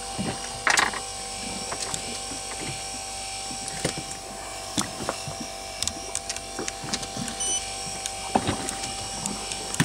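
Electric deep-sea fishing reel's motor whining steadily as it winds in line, with scattered clicks and knocks and a louder clack about a second in.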